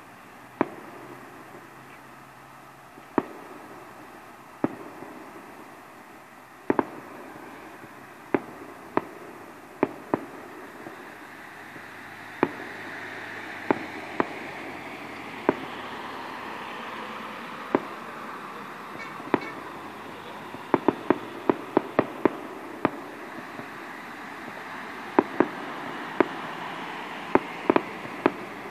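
Fireworks display: aerial shells bursting overhead in sharp single bangs at uneven intervals, coming in quick runs about two-thirds of the way through and again near the end, over a steady background noise.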